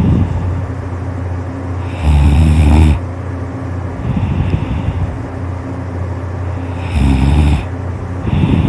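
A person snoring in deep sleep: two loud snores about five seconds apart, with softer breaths between them.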